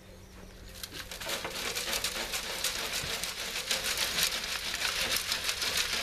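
Compost being riddled through a round garden sieve: a dense pattering rattle of soil and grit shaking through the mesh and falling into a wheelbarrow, starting about a second in.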